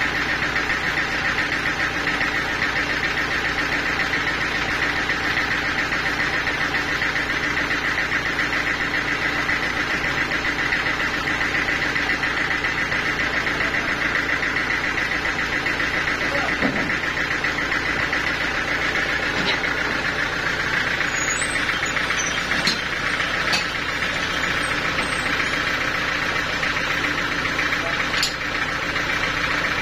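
Portable band sawmill running steadily, a constant machine drone with a high whine from the blade. A few sharp clicks and knocks come in the last third.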